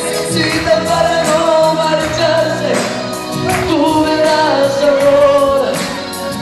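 Live music with singing: a voice holding long, gently wavering notes over a continuous band accompaniment.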